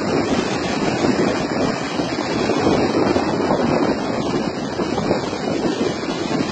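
Steady rushing roar of a large waterfall in flood, muddy water crashing over a cliff into a spray-filled gorge.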